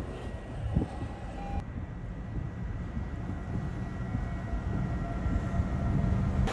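Tornado's steady low rumbling roar, with the storm wind around it.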